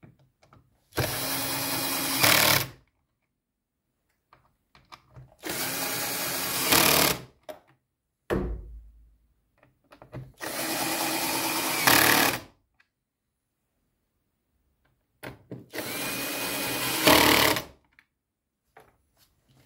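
Cordless drill-driver running the air filter housing lid screws home: four separate bursts of the motor whine, each about a second and a half long and louder at its very end as the screw seats. A short thump comes between the second and third bursts.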